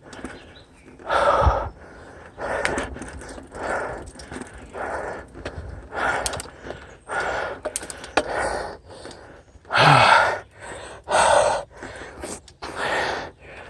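A person breathing hard and panting, about a dozen heavy breaths at roughly one a second, out of breath from a hard uphill bike climb.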